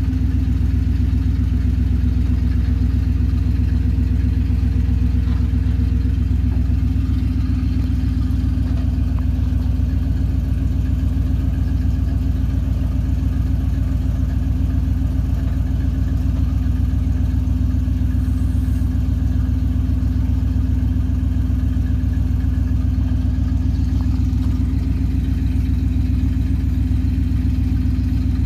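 1981 Chevrolet C70 truck's 6.0-litre eight-cylinder gasoline engine idling steadily.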